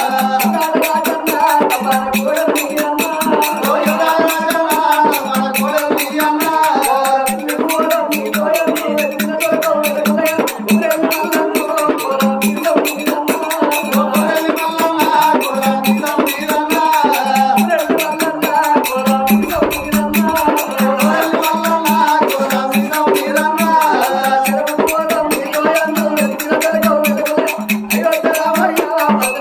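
Oggu katha folk music: voices singing over a hand drum beating a steady pulse, with a constant fast rattling jingle over the top.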